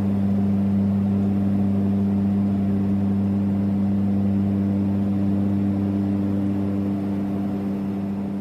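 Cabin drone of a Beechcraft King Air twin turboprop in flight: a steady low hum of propeller and engine tones over rushing noise, easing down in level near the end.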